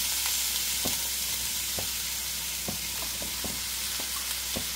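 Hot oil sizzling steadily in a frying pan of onion and coconut masala as cauliflower florets are dropped in by hand, with scattered light taps of florets landing in the pan.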